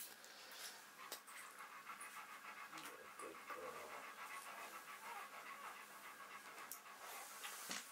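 A dog panting, faint and steady.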